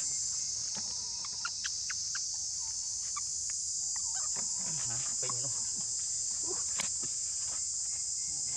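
Steady, high-pitched drone of an insect chorus, with scattered light clicks and rustles and a few faint short calls near the middle.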